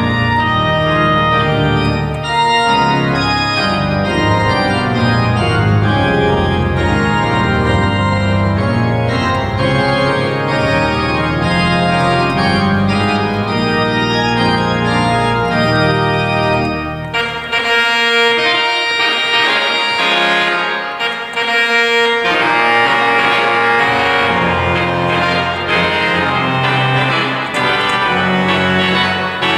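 Organ playing a dialogue between its tuba and trumpet reed stops, in full sustained chords over deep bass notes. About two-thirds of the way in, the bass drops out for a few seconds, leaving only higher chords, then comes back.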